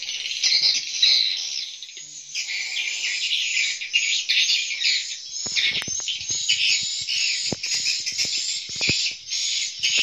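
Edible-nest swiftlets twittering: a dense, continuous, high-pitched chirping, with a few short clicks in the second half.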